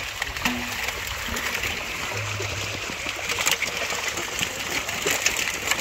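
Many fish thrashing in the shallow water of a seine net drawn tight, a continuous splashing made up of many small, sharp splashes.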